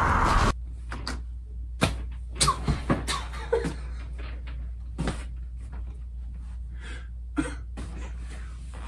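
Loud soundtrack music cuts off abruptly about half a second in. Then come scattered knocks and bumps and a few short wordless vocal sounds from a person getting up and moving about a small room.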